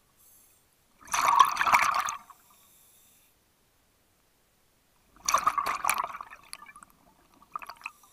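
Scuba diver's exhaled breath bubbling out of a regulator underwater: two long bursts of bubbles about four seconds apart, then a short one near the end.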